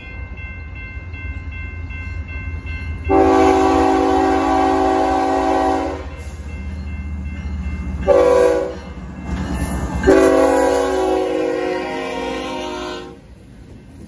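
BNSF diesel freight locomotive's multi-chime air horn blowing a long blast, a short one and a final long one, the close of the long-long-short-long grade-crossing signal, over the low rumble of the approaching locomotives.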